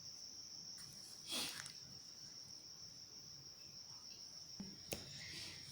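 Faint room tone with a steady high-pitched trill running throughout, a soft rustle about a second and a half in, and a small click near the end.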